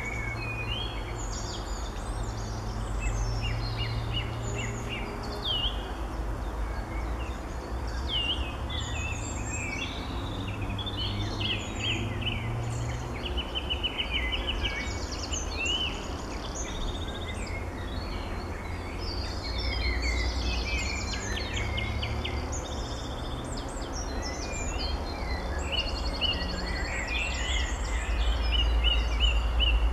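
Songbirds singing, several at once, with quick chirps, whistled notes and fast trills, over a steady low rumble.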